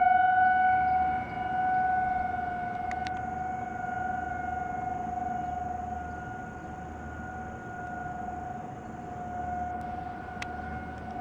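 Distant outdoor tornado warning sirens sounding one steady tone for a scheduled test, loudest at first, then fading with slow swells. A faint high-pitched whine sits under it through the middle.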